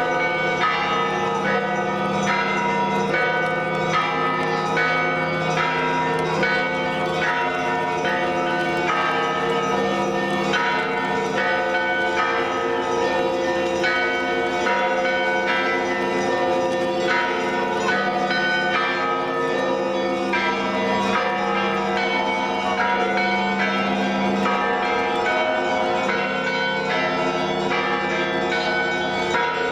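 Russian Orthodox church bells of the Vologda Kremlin belfry rung together in a continuous peal (zvon). Many bells of different pitches are struck in quick succession, each strike ringing on into the next, with a steady low hum beneath.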